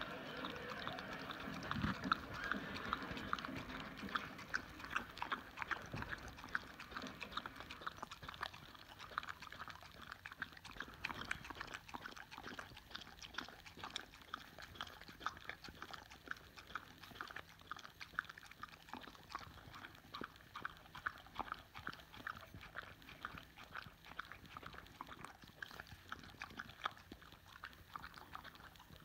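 A boxer dog licking and smacking its mouth and tongue on sticky peanut butter: a long run of quick, irregular wet clicks and smacks, loudest in the first few seconds.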